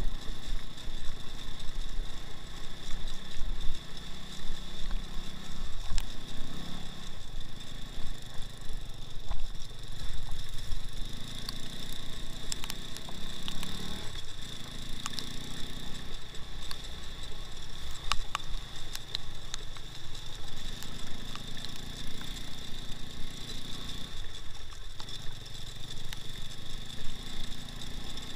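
Two-wheel-drive off-road motorcycle's engine running under way, its revs rising and falling in several swells as the throttle opens and closes. A steady high whine sits underneath, and there are occasional sharp knocks.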